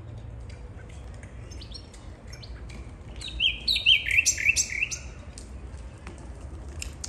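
Caged bird calling: scattered short high chirps, then about three seconds in a louder run of about six quick notes, each sliding downward.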